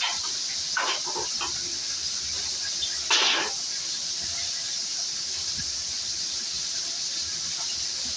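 Fish frying in oil in a pan, a steady high sizzle throughout. A few brief soft knocks come near the start, and a short louder rush of noise about three seconds in.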